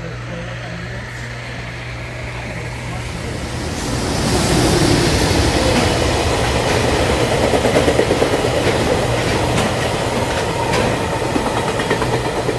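Freight train passing, wheels rumbling and clicking over the rail joints, swelling louder about four seconds in. This is the full-size train sound effect laid over the model train footage.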